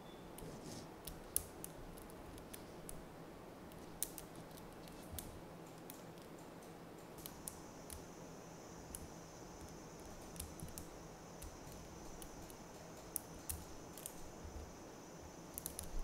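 Small magnetic balls clicking as they are snapped one at a time onto a cube of magnetic balls: sharp, irregular little ticks.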